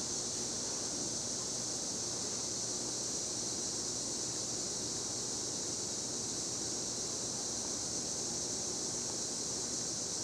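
A 40-inch ceiling fan running steadily on medium speed: an even rush of moving air with a faint low motor hum.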